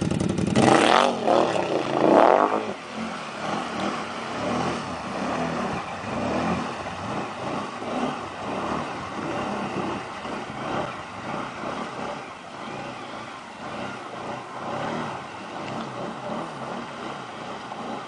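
Can-Am ATV's V-twin engine revving hard in two surges as it pulls out of deep water, then running on through the water as it drives off, growing fainter with distance.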